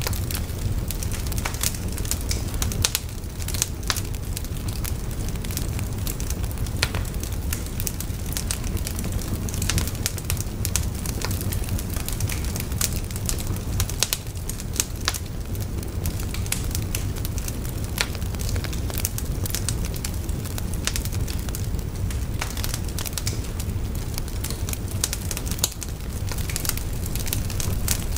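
Fire crackling: frequent, irregular sharp pops and snaps over a steady low rumble of burning.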